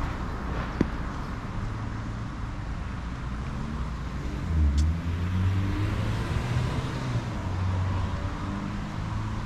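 Road traffic: car engines running and passing, a low hum that shifts in pitch, with a louder vehicle going by about four and a half seconds in.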